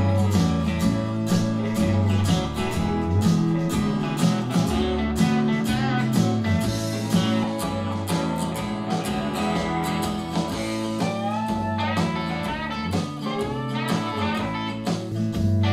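Song with guitar, bass and drums played back through a JBL portable Bluetooth speaker, with a steady beat and guitar notes that slide in pitch in the second half.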